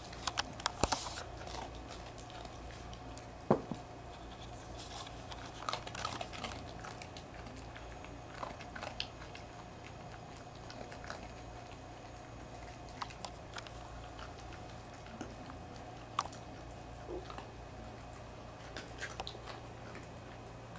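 A small dog chewing a crunchy cookie, with short crunches coming irregularly and pausing in between, the loudest about three and a half seconds in. A steady low hum runs underneath.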